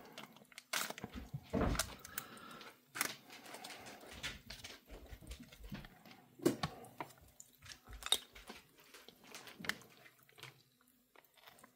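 Quiet handling of MRE food packets: scattered crinkles, taps and clicks with a few louder knocks, as a barbecue sauce packet is opened and squeezed out.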